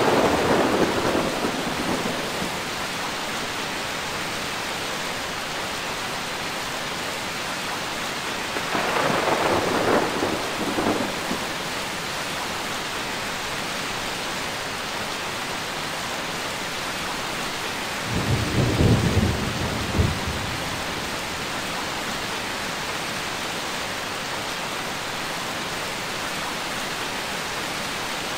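Steady heavy rainfall with rolls of thunder: one rumble fading out over the first couple of seconds, another about nine seconds in, and a deeper one near the twenty-second mark.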